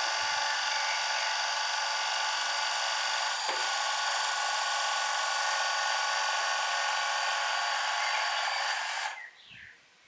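Electric motor and gearing of a 1:14-scale RC truck running with a steady whine, then cutting off suddenly about nine seconds in.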